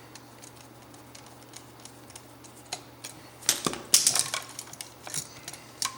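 Sharp clicks and taps of small metal hand tools and stiff copper wire being handled at an outlet's screw terminals. Quiet for the first half, then a quick cluster of clicks a little past halfway and a few scattered ones near the end.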